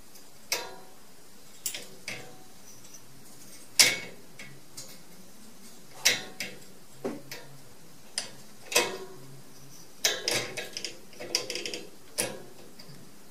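Metal slide-bolt latch and wire-mesh door of a cat cage clicking and rattling as a cat paws at the bolt: irregular sharp metallic clicks, the loudest about four seconds in, with a quick flurry of rattles near the end.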